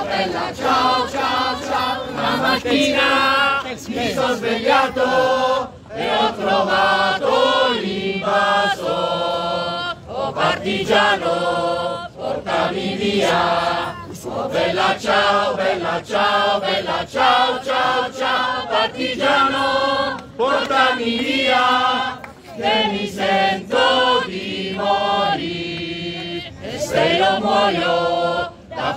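A crowd of people singing a song together, in sung phrases with brief breaks between them.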